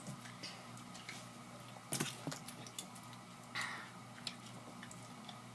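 Faint clicks and small knocks over quiet room tone, a cluster of them about two seconds in, with a short breathy rustle a little past the middle.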